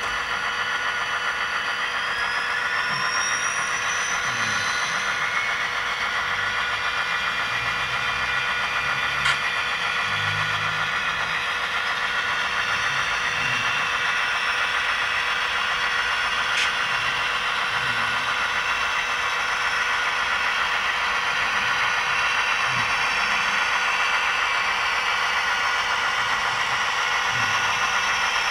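Model diesel locomotive's Soundtraxx Tsunami sound decoder playing a diesel engine running through the loco's small onboard speaker as it moves slowly, with a whine rising over the first few seconds. Two sharp clicks, about 9 and 17 seconds in.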